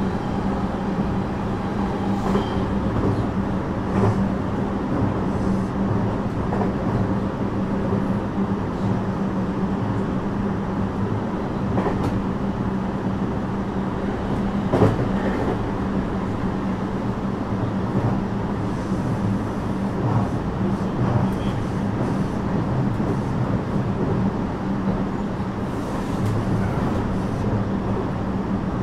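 Interior running sound of a JR West 321 series electric train (Toshiba IGBT-inverter cars) travelling at a steady speed: a continuous rumble with a steady low hum. A few sharp clicks come from the track now and then, the loudest about halfway through.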